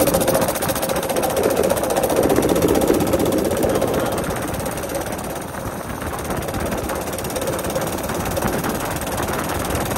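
Baja Warrior minibike's small single-cylinder engine running continuously, its note easing off a little around the middle and then picking back up.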